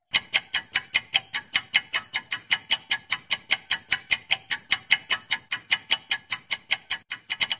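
Rapid clock-ticking sound effect for a quiz countdown timer: sharp, even ticks about five a second, with a brief break about seven seconds in before the ticking resumes.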